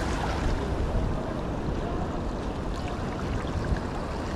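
Steady wind rumble on the microphone over small waves lapping against rocks.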